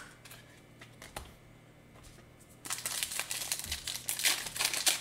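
Wrapper of a 2019-20 Status basketball hobby card pack crinkling as it is torn open by hand. A few light clicks come first, then dense crackling starts about two and a half seconds in.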